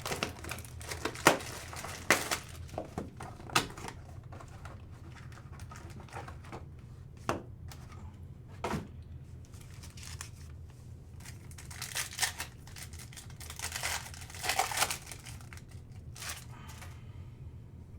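Trading cards and their plastic packaging being handled: crinkling and tearing of wrappers with scattered sharp clicks and taps, busiest about two-thirds of the way in.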